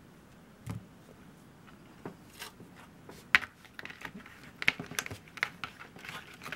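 Clear plastic clamshell packaging being handled on a table: a sharp click about three seconds in, then a run of light plastic crinkles and clicks. Before that, only faint rustling from a cloth wiping a phone's glass screen.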